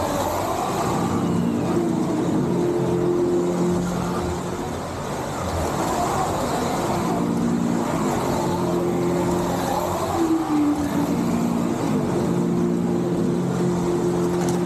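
Slot cars racing on a multi-lane track: their small electric motors whine and rise and fall in pitch as the cars come past in repeated passes a few seconds long, over the rattle of the cars on the track.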